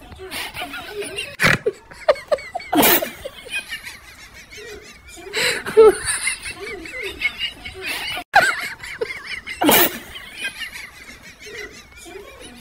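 People laughing and squealing, broken by several loud, sharp outbursts.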